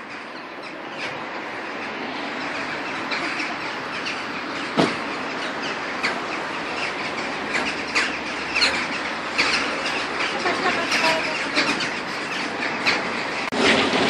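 A large flock of crow-like birds calling overhead: many short calls overlapping above a steady background noise, which grows louder over the first couple of seconds.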